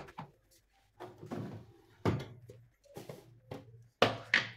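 Clunks and clicks from handling an LG front-loading washing machine: its door pushed shut, then the plastic detergent drawer slid open, with sharp knocks about two seconds in and a loud pair near the end.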